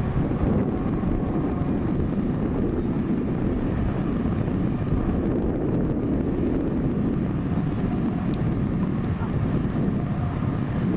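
A train running past, a steady low rumble that holds even throughout.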